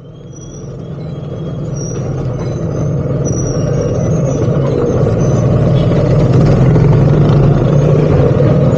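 Slow street traffic heard from a motorcycle riding behind a truck: a steady engine hum with road noise that fades in over the first few seconds. A few short high squeaks sound during the first four seconds.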